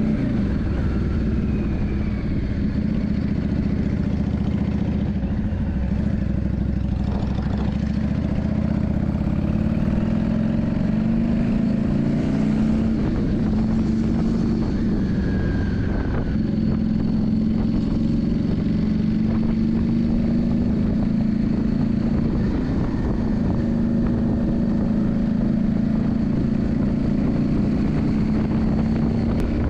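Yamaha Drag Star 400 V-twin engine running steadily, its pitch rising and falling slightly, over a steady rushing noise.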